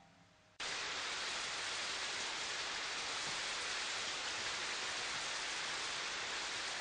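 Steady hiss of falling water, like rain, coming in abruptly about half a second in after near silence and holding even throughout.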